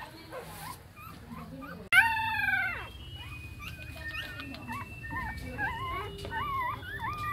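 Young puppies whimpering and crying: one loud, drawn-out high cry about two seconds in that falls at the end, then a run of short wavering whines, one after another.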